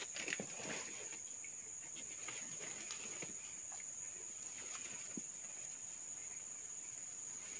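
Steady high-pitched insect drone from the swamp forest, with scattered faint ticks and rustles.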